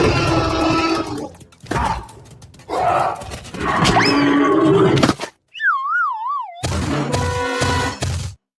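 Music laid with comic sound effects: a quick rising whistle-like slide about four seconds in, then a wobbling, warbling tone around six seconds, among noisy thuds.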